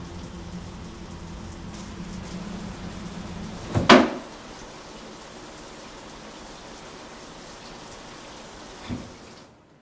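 A shower curtain yanked open along its metal rod gives one sharp, loud rattling scrape about four seconds in. Under it is a steady hiss with a low hum, which turns quieter after the pull, and a soft knock comes near the end.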